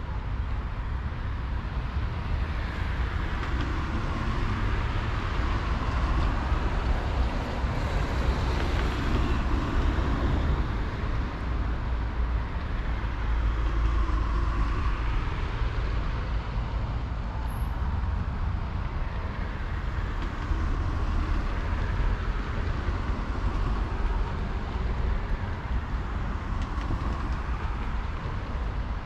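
Road traffic noise: a steady low rumble, with vehicles swelling and fading past several times.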